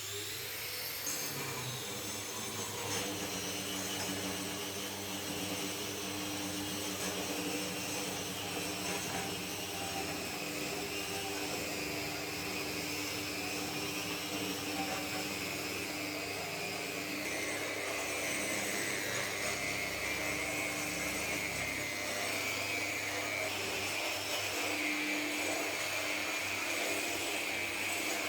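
Electric power tool running steadily under continuous load with a high motor whine; it starts up just before and settles in the first second or so.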